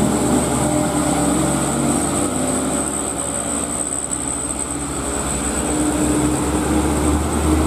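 Sand-laden Mitsubishi Canter dump truck's diesel engine pulling up a steep climb as the truck drives past, running steadily under load.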